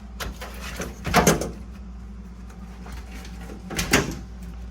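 Old truck wiring harness being pulled free, with the wires dragging and scraping in two short bursts over a low steady hum.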